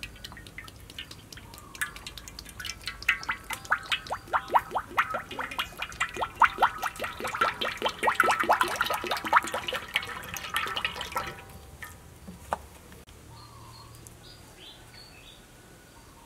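Soybean oil being poured in a thin stream into a stainless steel pan: a rapid patter of small splashing clicks that grows, then stops about eleven seconds in.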